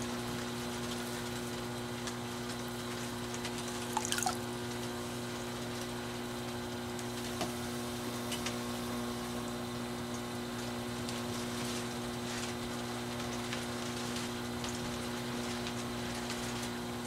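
Skutt Prodigy electric potter's wheel humming steadily, with the wet, watery sounds of a sponge and fingers sliding on spinning porcelain clay as the wall is thrown. A brief click about four seconds in.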